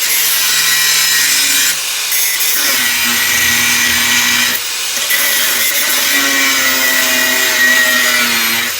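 Electric power tool cutting through a piece of steel. Its motor hum dips a little in pitch under load and recovers several times, and near the end it is switched off and starts to wind down.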